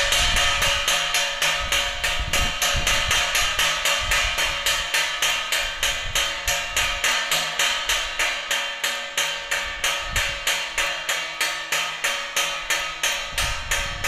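Wind-driven bird-scaring bell: a propeller turning in the wind drives a striker against a metal dish, clanging in a fast, steady rhythm of a few strikes a second, with the dish ringing between strikes. Gusts of wind rumble on the microphone.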